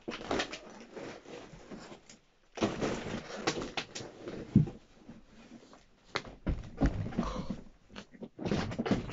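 A young man crying out and groaning in pain in irregular bursts, with short quiet gaps between them.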